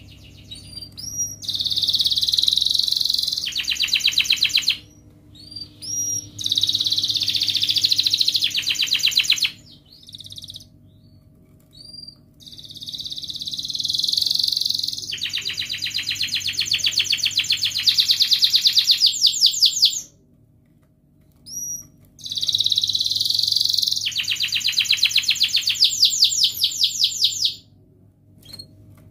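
Domestic canary singing long song phrases: each starts as a dense warble and breaks into a fast rolling trill (ngerol), with short rising chirps between the phrases. Four phrases come, separated by pauses of one to three seconds.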